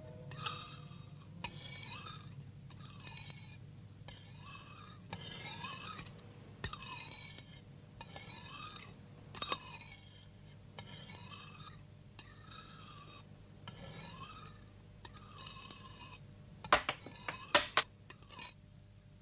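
A soft rasping sound repeats about once a second over a low steady hum. Near the end come a few sharp metallic clinks as metal claws and blades are set down on a wooden floor.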